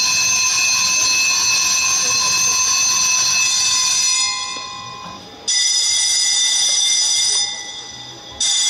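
Electric bell ringing in long, loud peals: one already sounding holds for a few seconds and fades out about five seconds in, a second starts straight after and fades, and a third begins just before the end.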